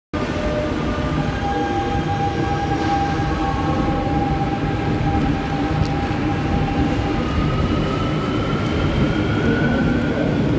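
CNR CITIC subway trains running through the station, with a steady rumble of wheels on the rails under the whine of the traction motors. Over the last few seconds a higher whine rises in pitch.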